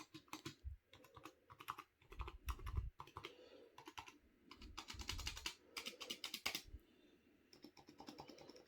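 Typing on a Razer Huntsman Mini keyboard with red linear optical switches: quick runs of keystroke clacks with the odd deeper thock, sparser near the end.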